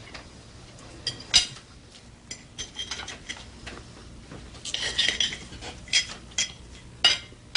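Irregular clinks of cutlery against dishes, with a busier run of clattering about five seconds in.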